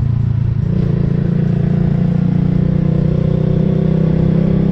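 Motorcycle engine running at a steady pace while riding, with wind and road noise.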